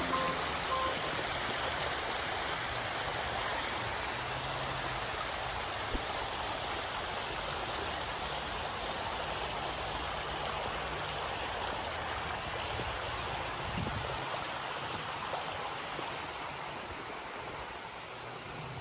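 Steady rushing of running water, like a stream.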